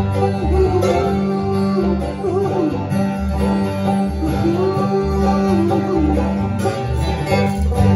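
Live bluegrass band playing: five-string banjo and acoustic guitar over a steady bass pulse of about two notes a second, with a melody line wavering above.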